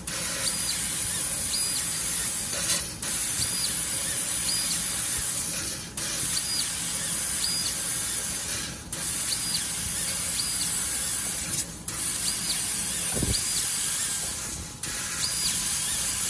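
DAHAN LF-G3015 laser tube cutting machine's cutting head hissing steadily as it cuts rings off a round metal tube. The hiss breaks off briefly about every three seconds, between cuts.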